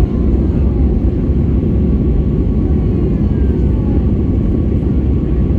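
Steady, loud low rumble of an airliner in flight, heard from inside the passenger cabin, with faint whines gliding slowly downward in pitch.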